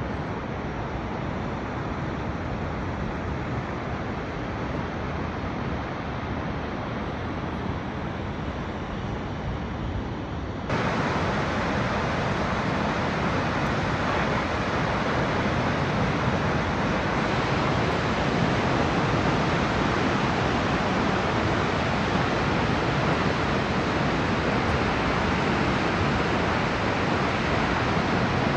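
Steady roar of a waterfall, an even rushing with no rhythm. About eleven seconds in it jumps suddenly louder and brighter, then holds at that level.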